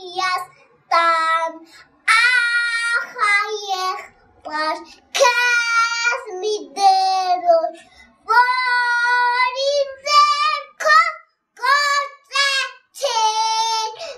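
A young boy singing a song unaccompanied, in short phrases with long held notes and brief pauses between them.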